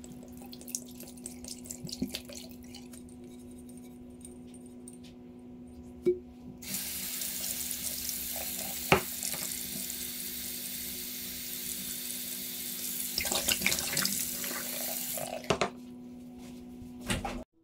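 Bathroom sink tap running steadily for about nine seconds as a glass soda bottle is rinsed under it, starting and stopping abruptly. Before that come quieter sounds of water being poured out of the bottle into the sink, and there are a few light knocks of the glass bottle.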